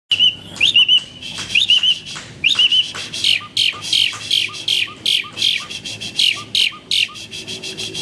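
Asian pied starling (jalak suren) singing: short chirps and trills for the first few seconds, then a quick run of repeated downward-sliding notes, about three or four a second.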